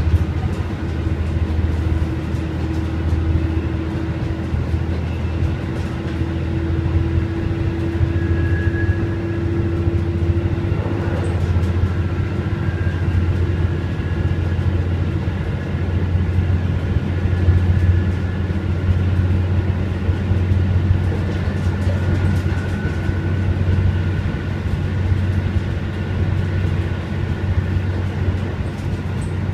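Inside a KiHa 11 diesel railcar under way: a steady low drone and rumble from the running railcar, with a faint higher tone held for about the first ten seconds.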